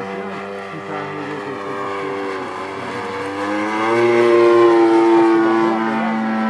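Engine of a Taxi 2400 radio-controlled model airplane running in flight, a steady pitched buzz. From about three and a half seconds in it rises in pitch and grows louder, then eases back near the end.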